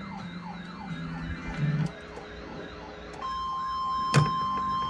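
Weather radio alert siren wailing up and down about three times a second. About three seconds in, a steady 1050 Hz weather-radio warning alarm tone starts over it, marking the next alert of a double-header. A sharp click comes about four seconds in.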